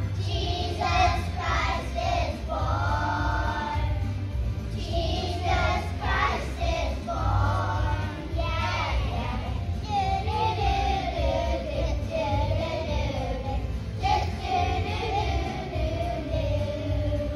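A children's choir singing a Christmas song together, the melody moving continuously without breaks.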